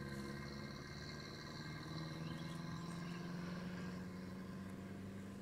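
A motor vehicle's engine running steadily, its pitch rising slowly.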